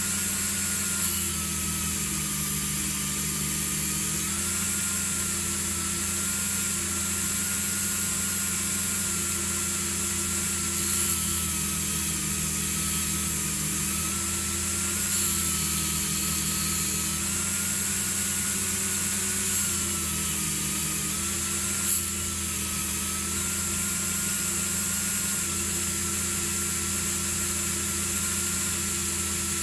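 Small high-speed electric rotary tool running steadily while polishing a small metal part; its pitch sags slightly and recovers every few seconds as the work is pressed against it.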